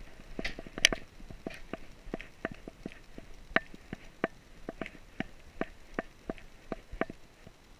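A small dog walking indoors with a camera strapped to it: an uneven run of sharp clicks and taps, a few a second, with one louder click about a second in.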